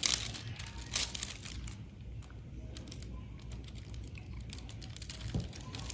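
Diamond-painting pen pressing small resin drills onto the sticky canvas: light, irregular clicks and taps.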